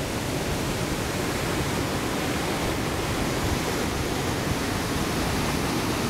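Waterfall in heavy flow: a steady, unbroken rush of falling water, deep rumble and hiss together.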